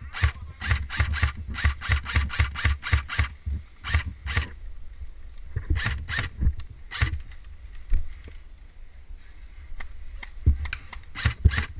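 Airsoft gun firing: a quick run of shots, about four a second for the first three seconds, then single shots spaced a second or more apart, with a short cluster near the end.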